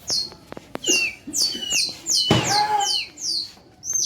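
Small birds chirping: a run of short, high chirps that fall in pitch, several a second. A brief rush of noise comes a little past halfway.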